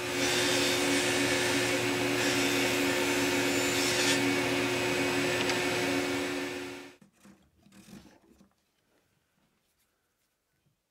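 Power tool running with a steady hum while it cuts a small maple key, then cutting off suddenly about seven seconds in, followed by a few faint taps.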